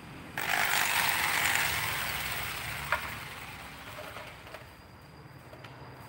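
A handheld corded electric power tool runs on the wooden plank. It starts suddenly, there is one sharp click about halfway through, and then it fades away over a few seconds.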